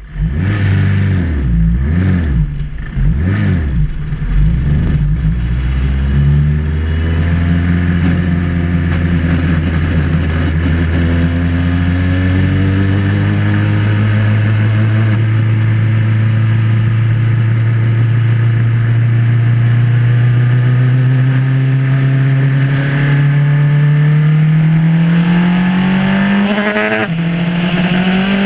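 Formula Renault single-seater's four-cylinder racing engine, blipped a few times at first, then pulling with its pitch rising slowly and steadily. Near the end the pitch drops sharply for an upshift and then climbs again.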